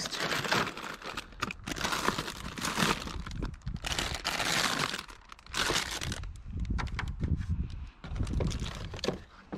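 Plastic food packaging crinkling and rustling in irregular bursts as a hand rummages through a wheelie bin full of discarded groceries.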